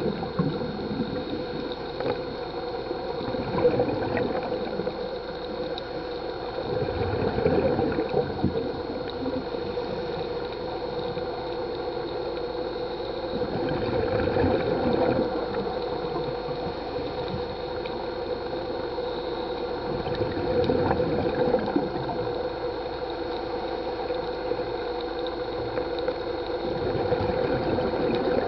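Scuba diver's exhaled bubbles gurgling and rumbling underwater, swelling every several seconds with each breath, over a steady hum.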